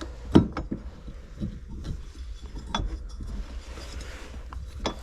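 A few sharp metal clinks and knocks as a water pump pulley is worked by hand into a tight gap beside the motor mount on a 3.0 MerCruiser engine, the loudest knock about half a second in.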